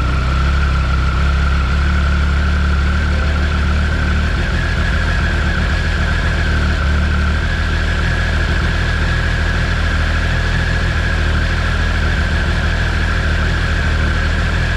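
Triumph Speed Triple RS's three-cylinder engine idling steadily, with a steady high whine that edges slightly up in pitch.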